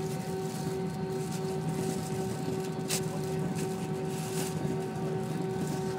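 Airbus A320 cabin noise with the jet engines at idle on the ground: a steady hum and rumble with a constant droning tone. A short click about halfway through.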